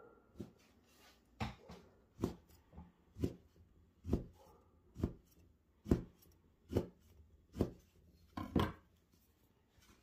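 A chef's knife cutting a rolled sheet of fresh egg pasta into tagliatelle, the blade knocking on a wooden pastry board: about ten even cuts, roughly one a second, with a quick double cut near the end.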